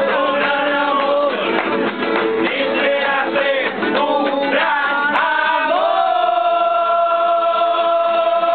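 Tuna minstrels and the crowd singing a song together in chorus to strummed guitar, many voices at once; for the last few seconds they hold one long final note.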